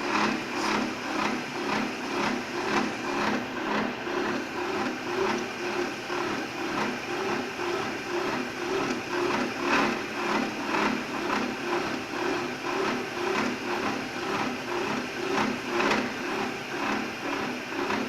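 Horizontal milling machine running and cutting a groove into a flat metal surface with a slotting cutter on its arbor. It is a steady machine sound with a regular rhythmic pulsing. The table is fed by hand in stops and starts, which leaves the cut surface uneven.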